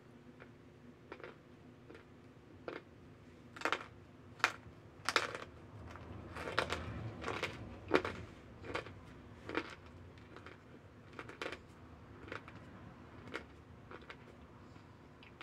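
Close-up chewing of hard chunks of pure cornstarch: irregular crisp crunches and crackles, busiest and loudest through the middle.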